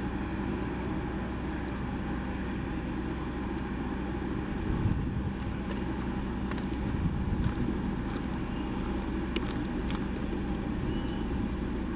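Steady low rumble of a train's diesel engine running, with a few sharp clicks in the second half.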